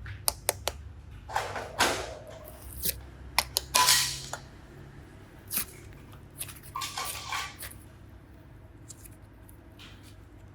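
Hands handling small objects: scattered light clicks, taps and rustles at irregular intervals, thinning out after about eight seconds.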